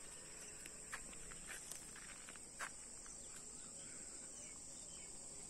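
A steady, high-pitched chorus of insects chirring in dry hillside scrub, with a few short clicks in the first three seconds.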